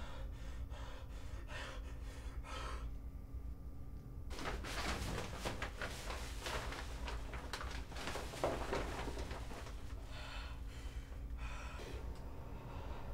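A man crying in gasping, uneven breaths, over a low steady hum.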